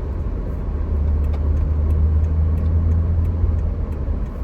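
Steady low rumble of a car on the move, with a few faint ticks.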